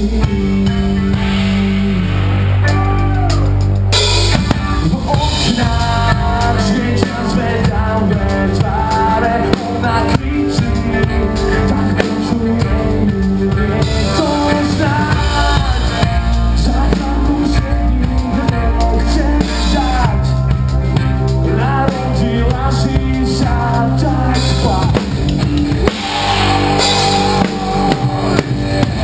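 Rock band playing: a Mapex drum kit played hard with cymbals, over bass and a sung lead vocal.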